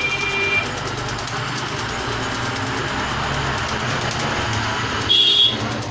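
Steady low mechanical rumble like an engine running, with a short high-pitched beep or call about five seconds in.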